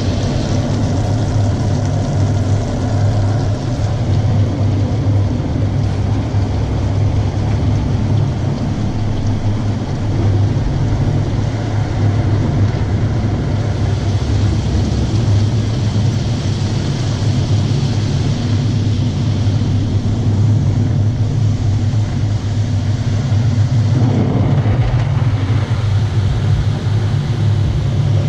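Automatic tunnel car wash heard from inside the car: a steady low hum with water spray and brushes rushing over the body, the rush growing heavier about three-quarters of the way through.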